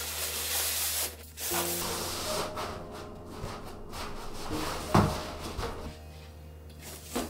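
Stiff fabric sides of a fabric bedding storage box rustling and rubbing as it is handled and pulled into shape, with one sharp knock about five seconds in.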